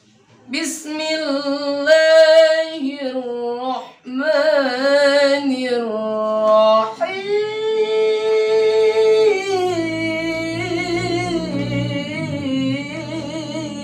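A man singing unaccompanied in long, held, melismatic phrases with a wavering vibrato. There is a short break for breath about four seconds in, then a climb to a higher sustained note. He is showing off his high notes and long breath.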